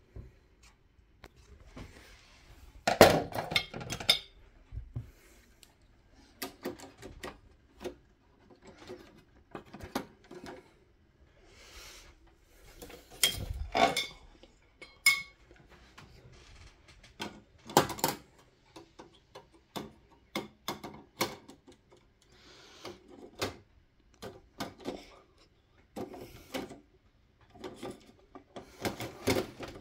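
Irregular clicks, taps and light clatter from hands handling 18 W TL-D fluorescent tubes and a metal light fitting, loudest a few seconds in.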